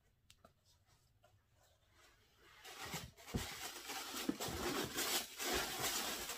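A few faint clicks, then from about two and a half seconds in, rustling and scraping with dull knocks as a sneaker is handled into its shoebox and hands rummage inside a cardboard shipping box.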